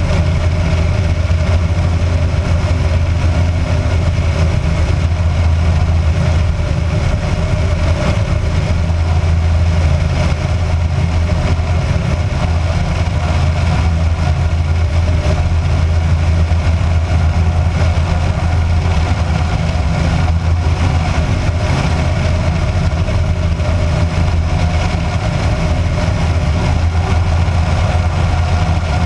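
Kitfox light aircraft's engine and propeller running steadily in flight, a constant low drone with no change in power.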